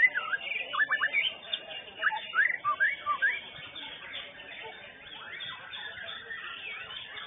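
White-rumped shama (murai batu) singing in a contest cage: loud whistled notes and quick rising sweeps over the first three seconds or so, then fainter song against a steady background din.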